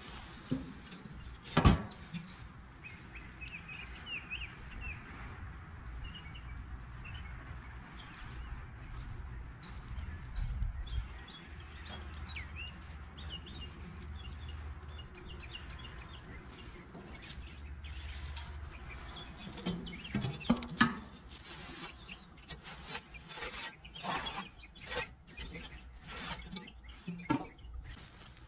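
Birds chirping over a low wind rumble on the microphone, with rag-wiping and handling noises from a rusty cast iron Dutch oven. A sharp knock comes about two seconds in, and a scatter of clicks and knocks runs through the last third.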